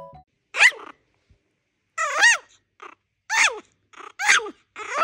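Pomeranian puppy giving short, high yelping barks, about five of them spaced roughly a second apart, each dropping in pitch.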